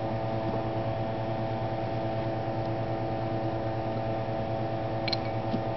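Steady electrical hum with several pitched tones stacked above it, and a couple of faint light clicks near the end.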